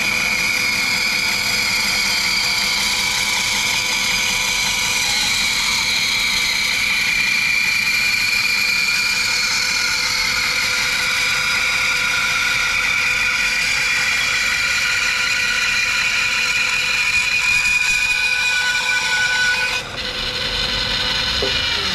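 Laguna 14-inch bandsaw running steadily while its blade rips a thin strip, about 5 mm thick, off a length of timber fed slowly along the fence; the cut runs smoothly. The whine holds steady, with a short dip in loudness near the end.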